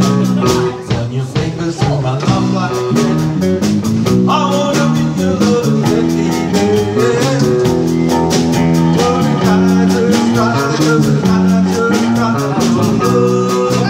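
Live band playing a song with a steady beat: electric and acoustic guitars, electric bass and a Sonor drum kit, with a man singing.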